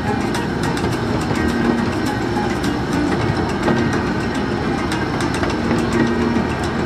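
Miniature park train rolling along its track: a steady rumble of the locomotive and cars with scattered clicks of the wheels on the rails, heard from an open passenger car.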